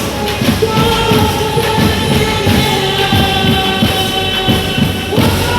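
Worship music: women's voices singing long held notes over a band with a steady beat, the sung note changing about five seconds in.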